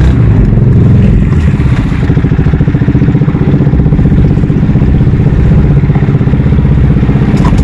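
Small boat engine running steadily and loudly, close by, with a fast even pulse.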